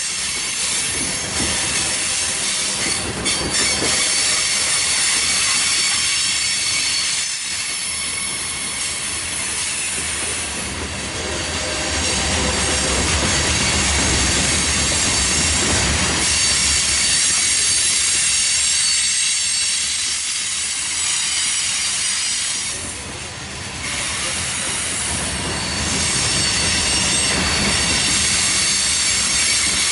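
Freight train of covered hopper cars rolling past close by: a steady rumble and rattle of steel wheels on the rails, with a high squeal from the wheels running through it.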